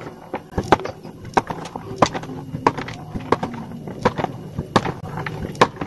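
A knife cutting a hot-melt glue stick into small pieces on a wooden tabletop: a run of sharp, irregular clicks and knocks, about three a second.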